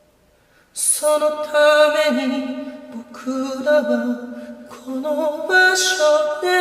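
A single voice singing a slow Japanese song in long, held notes. It comes in about a second in, after a moment of near silence.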